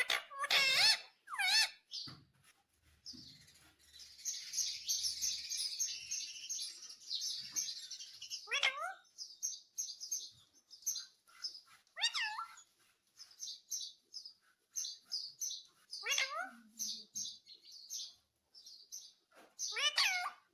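Indian ringneck parrot chattering and calling: a long run of high chirps, then short chirps broken by several wavering, shrill calls.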